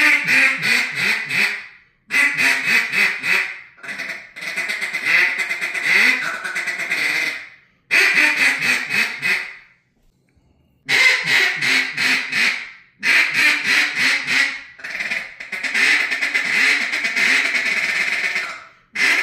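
Rich-N-Tone DCX cocobolo wood duck call blown in about eight runs of rapid quacks, each run a couple of seconds long with short breaks between, as the call's reed tuning is tried out.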